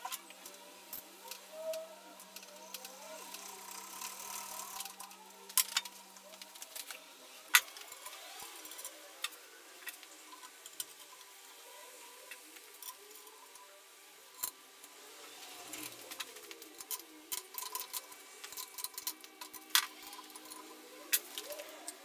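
Scattered small metal clicks and taps of parts being handled and fitted onto a motorcycle frame, with a faint steady hum during the first few seconds.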